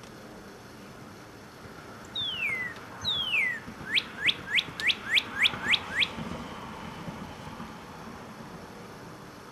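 Male northern cardinal singing: two long down-slurred whistles, then a quick run of about eight short rising notes, about four a second.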